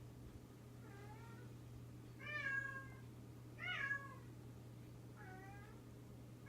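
A cat meowing four times, about a second and a half apart, the middle two meows louder than the others, over a steady low hum.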